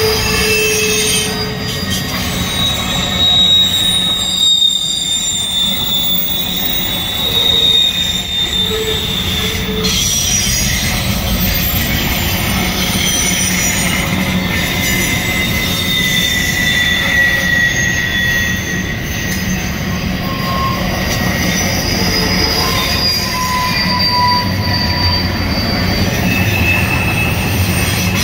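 Double-stack intermodal freight train rolling past: a steady rumble from its well cars, with high-pitched steel wheel squeals that drift in pitch and come and go.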